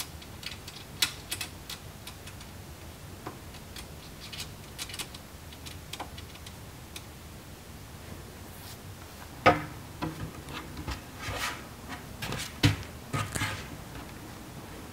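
Small metal clicks and ticks as hardware is worked along an aluminium T-slot extrusion rail, then a run of louder knocks and clatter in the second half, the loudest about nine and a half seconds in.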